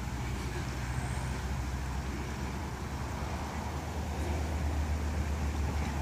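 Road traffic crossing a long road bridge: a steady low hum of vehicles with a noisy haze over it.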